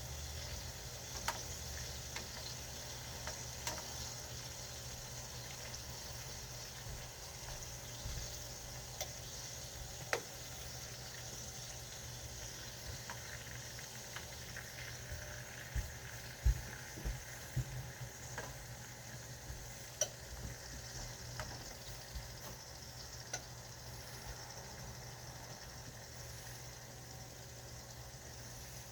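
Food sizzling steadily in a frying pan, with scattered light clicks and knocks, a cluster of them about halfway through.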